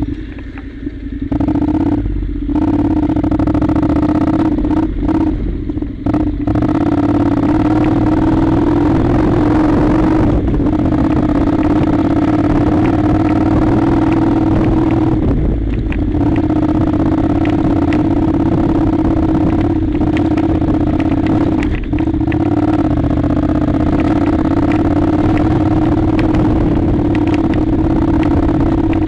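Honda NC700's parallel-twin engine running steadily as the motorcycle climbs a gravel track, its note coming up about a second in and then holding. Occasional clicks and clatter from the loose stones ride over it.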